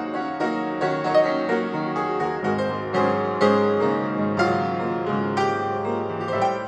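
Background piano music: a steady run of struck notes, about two a second.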